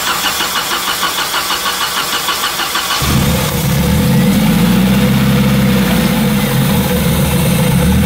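Nissan 240SX four-cylinder engine cranking on the starter with an even rhythm for about three seconds, then catching and running, its valve cover off and the cams exposed. It is being run open to trace a rattle that the owner suspects is rod knock or timing-chain slap.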